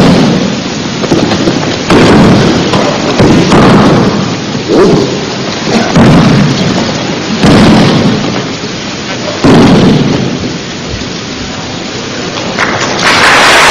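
Repeated heavy thuds of aikido students being thrown and breakfalling onto the mat, about one every one and a half to two seconds, each dying away in a rumble on a noisy, distorted old recording. A steady hiss comes in near the end.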